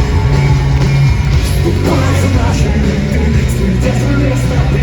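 Punk rock band playing live: loud guitars, bass and drums with cymbals crashing steadily, and a voice singing over them.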